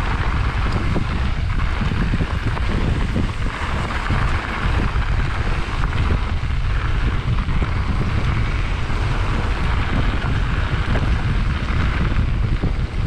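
Wind buffeting the microphone of a rider on a moving mountain bike: a loud, steady rush with a heavy low rumble.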